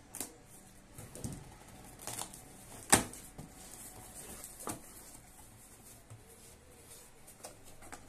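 Scissors cutting packing tape on a cardboard box, then the cardboard flaps being pulled open and folded back. Scattered crinkles, scrapes and clicks, with a sharp crack about three seconds in that is the loudest sound.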